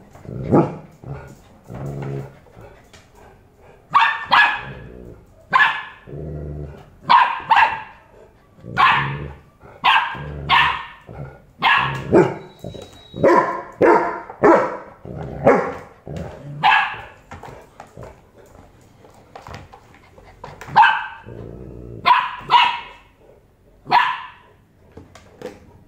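A golden retriever puppy and an adult golden retriever trading barks and growls in a playful squabble: about twenty short, sharp barks, with low growls between them.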